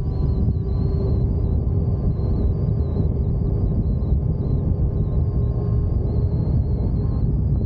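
Wind and road rumble while riding an Energica EsseEsse9 electric motorcycle: a steady low rush, with a faint thin whine high above it that wavers slightly in pitch.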